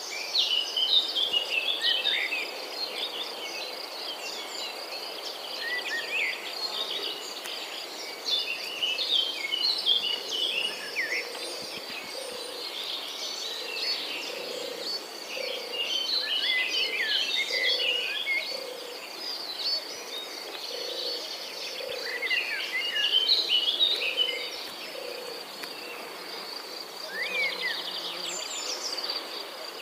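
Outdoor morning ambience: many birds chirping in short, varied calls over a steady high-pitched insect trill, with a faint low note repeating about once a second through the middle.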